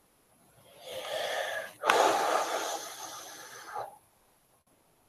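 A person's heavy breath close to the microphone, in two parts: a shorter one about a second in, then a louder, longer one starting about two seconds in with a sharp click and lasting about two seconds.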